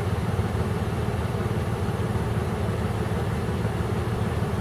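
A vehicle engine idling steadily, an even low rumble.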